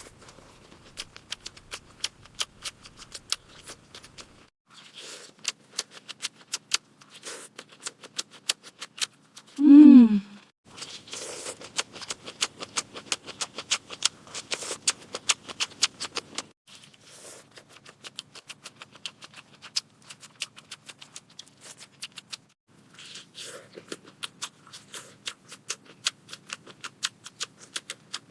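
Close-up eating sounds: rapid crisp clicks of crunchy chewing and biting, in irregular runs with short pauses. About ten seconds in comes a brief vocal moan that falls in pitch.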